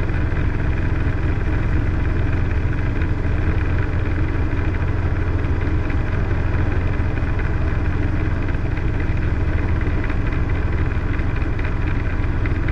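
Robinson R22 helicopter's four-cylinder piston engine and main rotor running steadily while hover-taxiing, heard from inside the cockpit.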